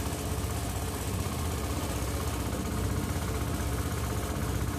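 A small motorboat's engine running steadily, with water rushing along the hull.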